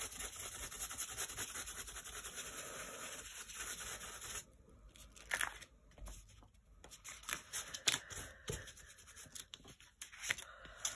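A paintbrush scrubbing and dabbing paint through a stencil onto a paper page, a rapid scratchy rustle, stops about four seconds in. After that come fainter scattered taps and rustles of paper being handled.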